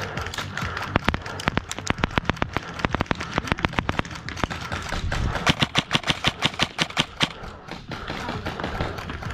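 Airsoft guns firing in rapid strings of sharp shots, with the densest, loudest run of shots about five to seven seconds in.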